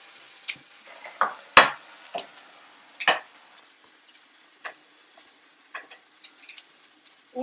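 Metal grill tongs clicking and knocking against the grill grate, the food tray and the food as grilled peppers and sweet-potato fries are turned: a few sharp clicks, the loudest about a second and a half in. Behind them a faint high chirp repeats about twice a second.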